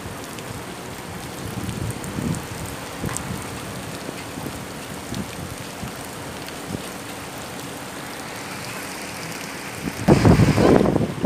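Rain falling steadily in a storm, with a loud gust of wind buffeting the microphone near the end.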